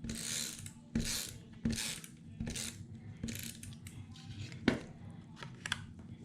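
Paper being handled on a craft table: a row of short dry rustles and scrapes, about one every three-quarters of a second, with a few light clicks among them.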